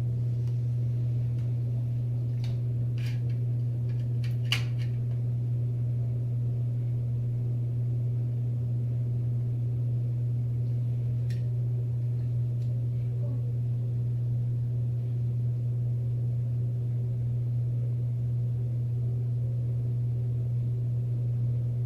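A steady low electrical hum that does not change, with a few faint clicks scattered through it.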